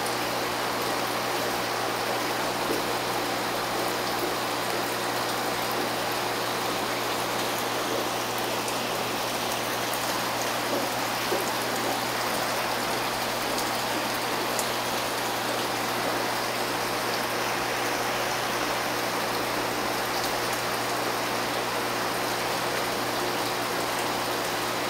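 Steady splashing and running water from aquarium filtration, with a faint low hum from the pump underneath.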